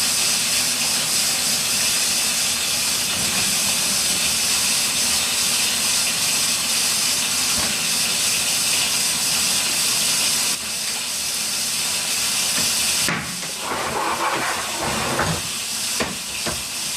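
Water running steadily into a washing machine as it fills, a loud hissing rush that thins and turns more uneven about 13 seconds in.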